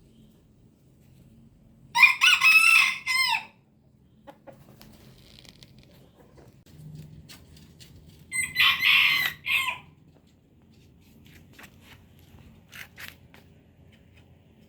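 A rooster crowing twice, each crow about a second and a half long, the two some six seconds apart.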